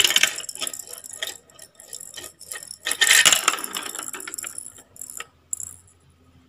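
Plastic ball rolling and clattering down a plastic marble-run track built from toy bricks, a run of rapid rattling clicks with a loud burst at the start and a louder one about three seconds in, stopping shortly before the end.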